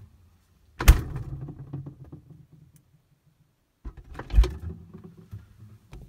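Knocks and scraping of things being handled inside a refrigerator, with a food package moved on a shelf. There is one sharp knock about a second in with scraping after it, then a heavier thud a little after four seconds followed by smaller clicks.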